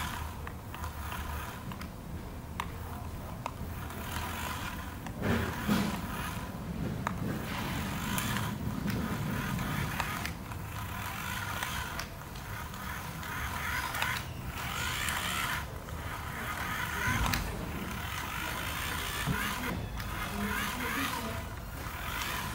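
Electric motor and plastic gearbox of a 1/18-scale radio-controlled toy buggy whirring in spurts as it drives and turns, with scattered clicks and rattles from the toy on the hard floor.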